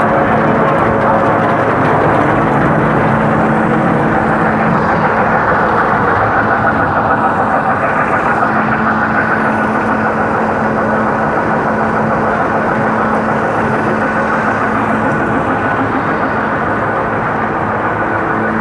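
Animal feed pellet plant machinery running: a loud, steady mechanical drone with a low hum that fades for a few seconds and comes back.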